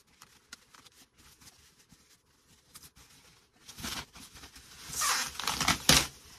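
Thin foam packing wrap and a plastic bag rustling and crinkling as they are pulled off an electric guitar. Faint crinkles at first, then loud bursts of rustling about four seconds in and again between five and six seconds.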